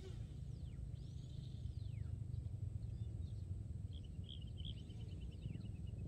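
Low steady rumble of wind on the microphone, with birds calling over it: repeated falling whistles and, about four seconds in, a rapid trill.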